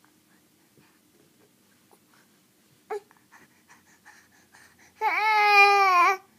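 An infant lets out one long, loud, steady-pitched cry about five seconds in, after a quiet stretch broken by a short squeak near three seconds.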